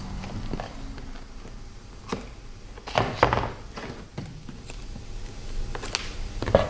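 Hands working nylon webbing straps on a workbench: a few short rustles and clicks, the loudest a brief cluster about three seconds in and another just before the end.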